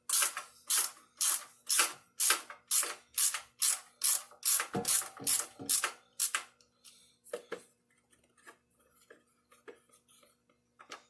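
Hand ratchet with a 5/16 socket backing out the torque converter cover bolts: its pawl clicks with each stroke in a steady rhythm about twice a second, then the clicks turn fainter and uneven for the last few seconds.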